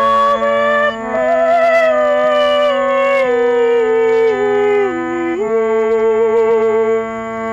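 Hand-pumped harmonium sustaining steady chords that change about a second in and again near the end, under a woman singing long drawn-out notes with vibrato that step down in pitch and then hold.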